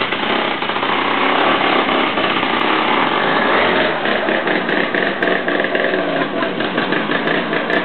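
Chainsaw running steadily, with a fast, even clatter from about four seconds in as the chain cuts into glass beer bottles.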